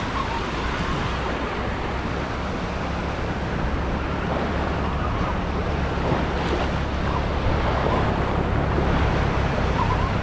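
Gulf of Mexico surf breaking and washing over the shallows, with wind rumbling on the microphone.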